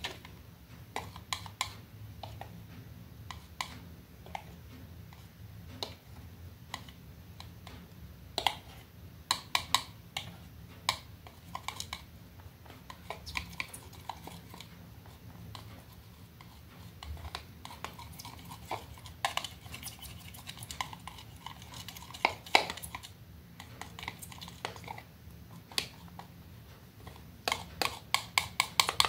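Palette knife tapping and scraping in the wells of a plastic paint palette while mixing acrylic paint: irregular light clicks, with a quick run of taps near the end, over a faint low hum.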